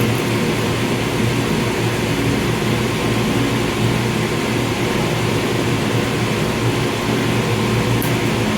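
Loud, steady machinery noise with a low hum, even throughout with no rhythm or breaks.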